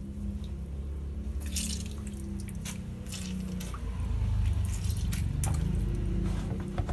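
Lemon juice dripping and splashing into a bowl of water as a half lemon is squeezed over it: a few separate drips and small splashes. A steady low hum runs underneath.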